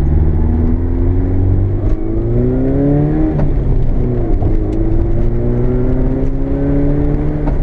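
Nissan 240SX's engine accelerating, heard from inside the cabin: the revs climb, drop briefly at a gear change about three seconds in and again a second later, then climb steadily again. A few faint sharp knocks come through over the engine.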